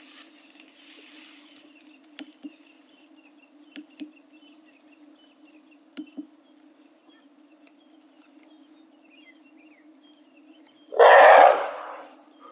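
African elephant giving one loud, harsh roar lasting about a second near the end, over a steady low hum with a few soft clicks.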